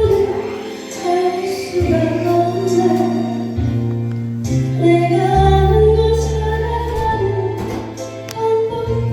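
Background music with a woman singing over held bass notes that change every second or two.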